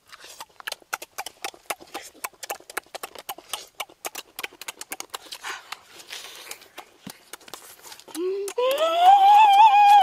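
Close-up wet eating sounds: rapid clicks of chewing and lip smacking on grilled fish and guava. About eight seconds in, a person lets out a long, loud, high-pitched vocal cry that rises and then falls.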